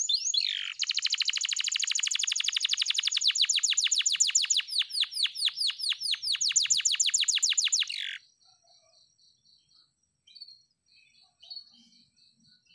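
Domestic canary singing a long rapid trill of repeated down-slurred notes that gradually slows and stops abruptly about eight seconds in, followed by a few faint soft notes.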